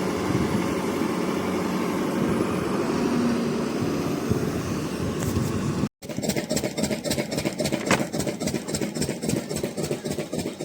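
Heavy machine engine running steadily. After a cut about six seconds in, an engine with a rapid, even chugging beat takes over.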